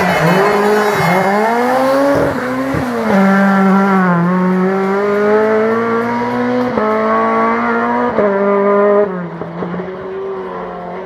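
Rally car engine revving hard under acceleration, the pitch climbing and then dropping back at each quick upshift, about two seconds in, near three, and again around seven and eight seconds in. It grows quieter over the last couple of seconds.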